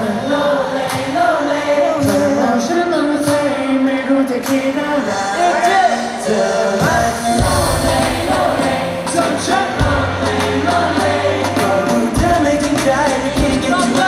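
Live pop song: several male voices singing over a live band of drums, bass guitar and keyboard, with the drums and bass coming in strongly about seven seconds in.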